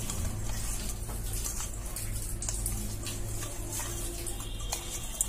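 Hands squishing pieces of rohu fish in a steel bowl, rubbing them with oil and ground spices: wet squelching with scattered light clicks, over a steady low hum.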